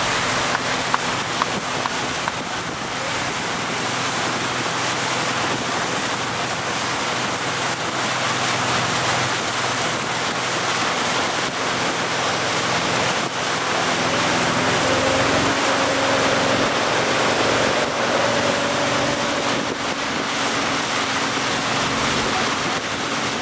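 Motorboat towing a water skier at speed: a steady engine hum under the loud rush of the wake and wind buffeting the microphone.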